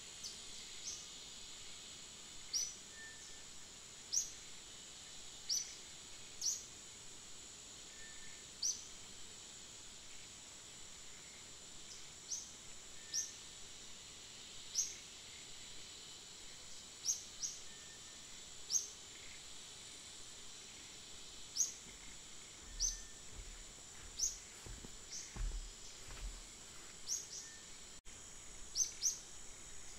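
Forest ambience: a steady high insect drone with short, high bird chirps repeating every second or two. A few faint low thuds come about three-quarters of the way through.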